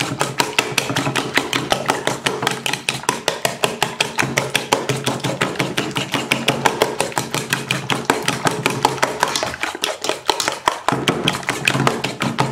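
Raw eggs being beaten with a fork in a stainless steel bowl: fast, even clicking of the fork against the metal bowl, about six or seven strokes a second.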